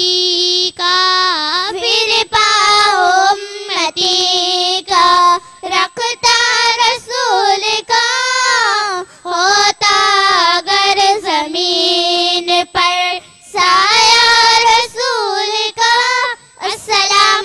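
Young girls singing a naat, an Urdu devotional song in praise of the Prophet, unaccompanied into microphones: long held notes that bend and waver in ornaments, with short breaks between phrases.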